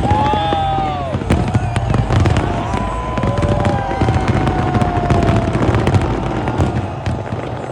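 A fireworks display bursting without a break, dense bangs and crackling one after another, with long drawn-out shouts or whistles from the crowd over the top.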